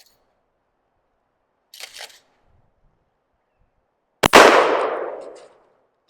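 Remington 870 pump-action shotgun firing a load of 00 buckshot: one loud shot with a long fading echo. About two seconds before it comes a brief double clack, the pump slide being worked back and forward.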